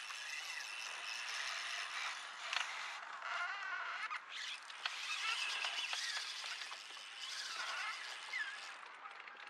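Spinning reel being cranked to retrieve a lure, its handle and gears turning, over a hiss of strong wind that noise reduction has partly taken out.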